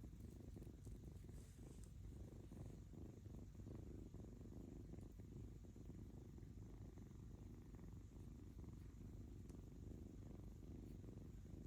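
A kitten purring: a steady, low rumbling purr.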